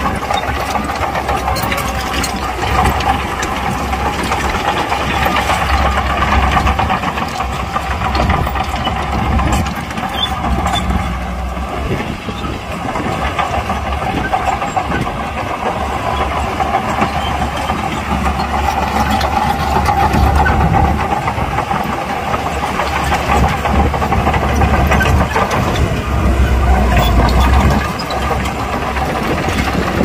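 Diesel engine of heavy earthmoving equipment running steadily, its level rising and falling a little.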